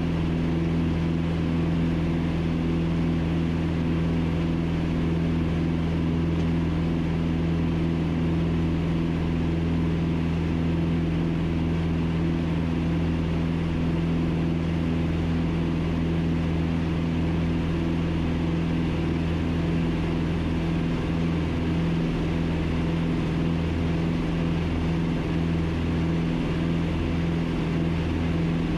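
The twin four-cylinder Lycoming engines and propellers of a Piper Twin Comanche PA-30B, running steadily in flight and heard from inside the cabin as an even drone.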